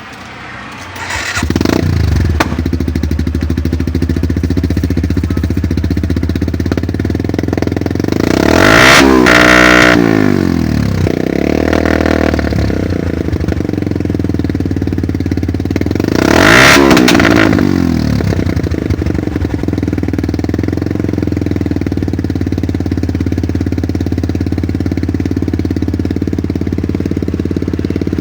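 Suzuki Gixxer 155's single-cylinder engine through an aftermarket Akrapovic muffler, idling steadily. It is revved twice, about eight seconds in and again about sixteen seconds in, each rev rising and falling back to idle.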